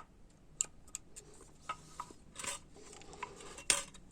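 Small metal transmission valve-body parts being handled: a scatter of light clicks and taps, with two short scraping rustles, the louder one about three and a half seconds in.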